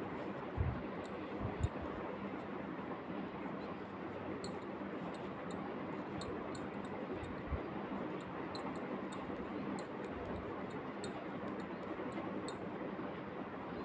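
Knitting needles clicking lightly and irregularly as stitches are worked by hand, over a steady background hiss, with a few soft knocks from handling.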